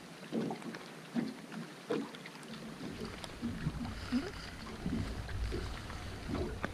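Scattered light knocks and taps aboard a small fishing boat, with wind starting to rumble on the microphone about three seconds in.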